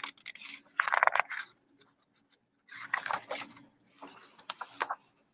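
Stiff glossy pages of a large paperback picture book being turned by hand, crinkling and rustling in three or four short bursts.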